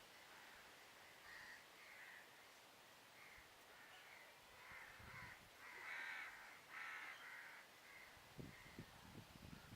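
Crows cawing: a faint run of repeated harsh calls, loudest about six to seven seconds in, with a few low knocks near the end.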